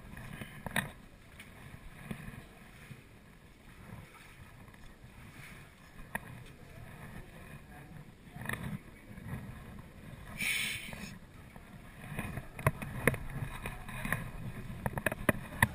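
Kayak moving through still water, with low water noise along the hull and scattered small knocks and clicks that grow more frequent in the last few seconds. A brief hiss comes about two-thirds of the way through.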